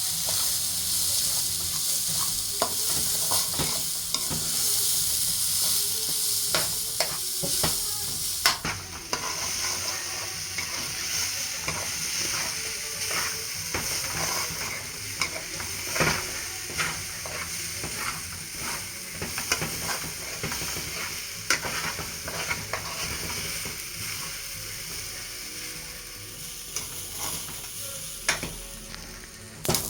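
Rice parching in hot oil in a pot, sizzling steadily while it is stirred, with a utensil scraping and knocking against the pot many times. The sizzle changes abruptly about eight seconds in. This is the dry-frying stage before water is added to the fried rice.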